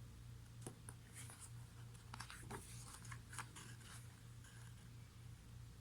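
Faint rustling and light clicks of a photobook's pages being handled and turned, over a steady low hum.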